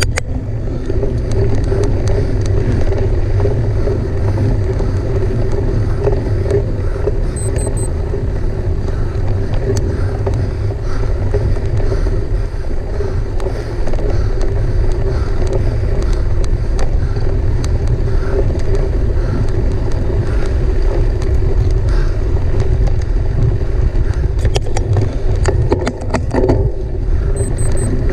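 Mountain bike being ridden at race pace: a steady low rumble from the tyres on the ground and wind on the microphone, with a short run of sharp clicks and rattles near the end.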